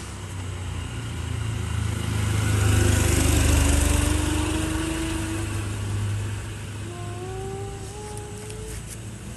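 A motor vehicle engine passing by: a low rumble that swells to its loudest about three seconds in and then fades, its pitch rising slowly as it goes. Near the end a second, higher engine note rises.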